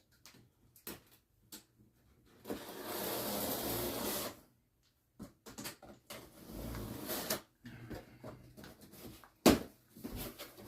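Handling of packaging and parts: a couple of seconds of scraping and rustling, another shorter stretch of it, scattered clicks, and one sharp knock about three quarters of the way through.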